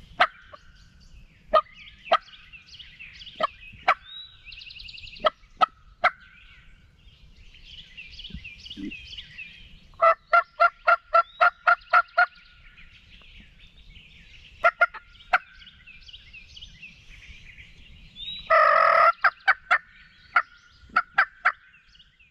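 Wild turkey yelps and clucks: sharp single clucks scattered throughout, an even run of about eight yelps a little after ten seconds in, and a loud, longer call near the end.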